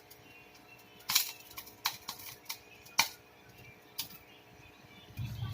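Butter melting in a pan over the heat, giving about five scattered sharp pops over a few seconds.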